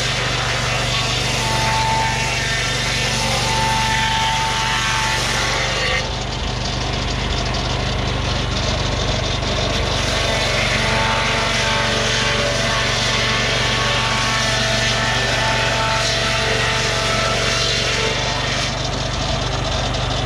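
Lucas Mill 618 swing-blade sawmill running under load, its gasoline engine driving the circular blade through a pine log as the carriage is pushed along the rails. A steady engine drone with sawing hiss that changes a little about six seconds in.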